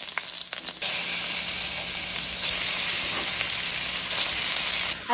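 Chopped onion and ground beef frying in hot oil in a pan: a steady sizzle that gets louder about a second in.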